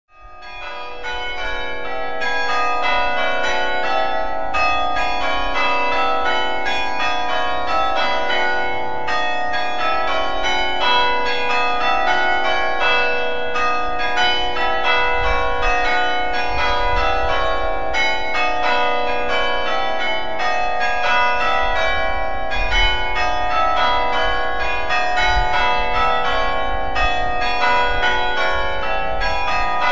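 Church bells hung dead, struck by hammers in quick succession, each stroke ringing on under the next. The bells fade in over the first second or two.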